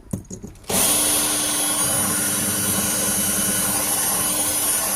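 Power drill with a ball-shaped bit running steadily and grinding into a glass jar. It starts up about three quarters of a second in, with a steady whine and a high grinding hiss.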